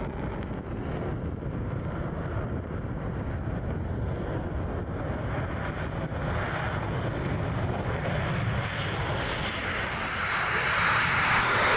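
F-35A Lightning II's single F135 turbofan jet engine at takeoff power during the takeoff roll and liftoff, a steady jet roar that grows louder as the aircraft closes in. It turns markedly louder and harsher in the last couple of seconds as the jet lifts off.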